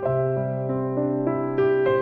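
Soft background piano music: notes enter one after another every few tenths of a second over a held low note.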